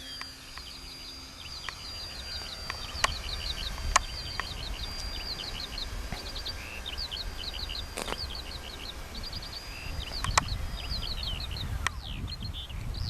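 A songbird singing a long unbroken run of quick, high chirps, over low wind rumble on the microphone, with a few sharp clicks.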